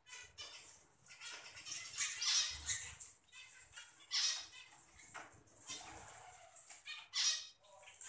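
Budgerigars chirping and chattering in quick, high-pitched bursts, with louder calls about two, four and seven seconds in.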